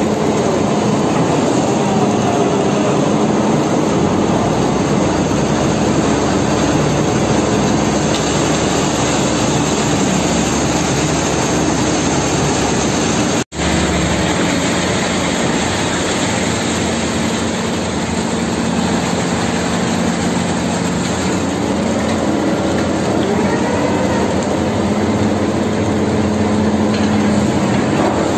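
Heavy diesel machinery running steadily: the engines of a Hino 500 concrete mixer truck and a Sany SR 150C piling rig, while concrete is discharged down a tremie pipe. A short break comes about halfway through.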